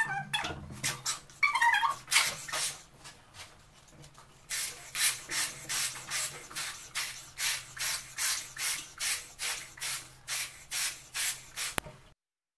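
A green latex balloon being blown up by mouth, in short breathy puffs about two a second, after a few seconds of the rubber being handled and stretched.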